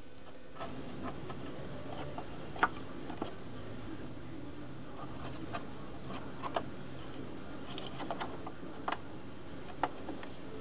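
Scraping and picking caked, dried grass clippings off the underside of a lawnmower deck by hand: irregular scratching with light clicks, starting about half a second in, and a few sharper ticks scattered through.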